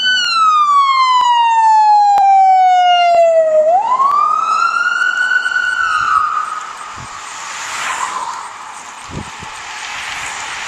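Emergency-vehicle siren wailing: one slow fall in pitch over about three and a half seconds, then a quick rise back up, cutting off about six seconds in. A quieter steady rushing noise follows.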